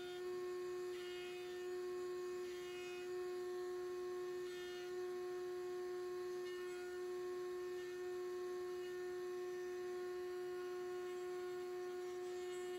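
Table-mounted router running with a steady high whine. A few short, higher-pitched bursts in the first five seconds come from the bit cutting the edge of a small wooden disc.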